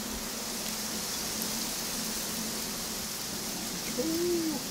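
Steady hiss of background noise, even throughout, with a short hum that rises and falls in pitch about four seconds in.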